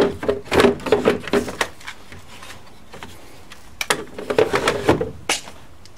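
Homemade wooden drawer in an in-wall compartment sliding and bumping in its box, with knocks and a sharp click. It comes in two bouts separated by a pause of about two seconds.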